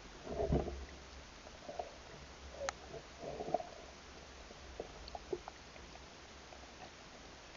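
Faint muffled thumps over a steady low rumble underwater, the loudest about half a second in, with a sharp click near the end of the third second and scattered small clicks later on.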